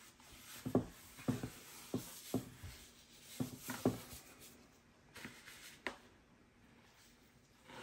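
Gloved hand rubbing a gritty dry cure into raw pork belly in a plastic container: a run of short, faint scraping strokes. They grow sparser after about four seconds, as more cure is scooped from a plastic bowl.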